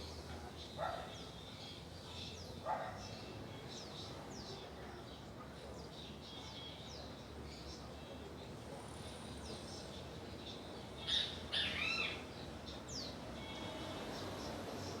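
Several birds chirping and calling: short high chirps that sweep downward recur throughout, with a few lower calls in the first three seconds and a louder burst of calls about eleven seconds in.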